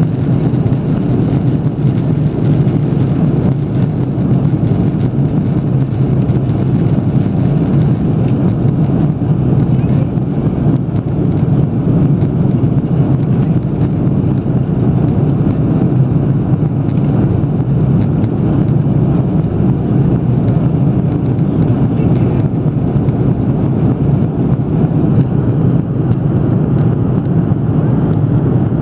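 Airbus A330-300 cabin noise during the climb after takeoff: the jet engines and the rushing airflow make a steady, deep, unchanging rumble.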